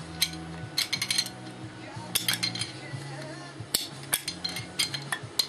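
Metal tools clinking and tapping against the parts inside a Gen 1 Suzuki Hayabusa clutch basket as they are worked loose: a series of short, sharp clinks at irregular intervals.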